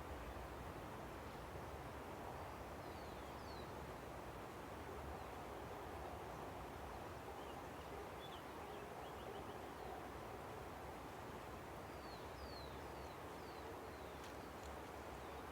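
Steady rush of a river, with a few faint, high bird chirps in short falling notes: a small cluster a few seconds in, another around the middle, and more near the end.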